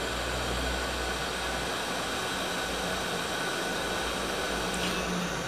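Hot-air rework station blowing a steady hiss onto a circuit board while surface-mount capacitors are desoldered, capacitors suspected of being shorted.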